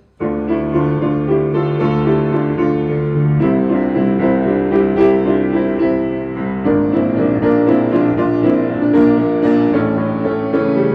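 Piano music: held chords that change about every three seconds, with a sustained low bass note under each.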